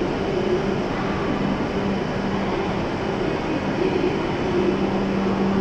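A stationary E7 series Shinkansen train humming steadily from its onboard equipment while it stands at the platform with its doors open, a low tone in the hum fading in and out.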